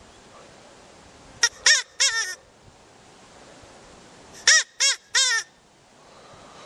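A recorded animal call used as a rabbit lure: two bursts of short, harsh, pitched notes, each rising then falling, four in the first burst and three in the second, about three seconds apart.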